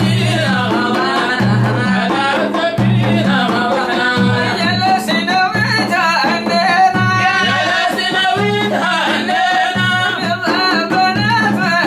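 A voice singing an Arabic Sufi praise poem over instrumental accompaniment, with a steady low beat repeating under the melody.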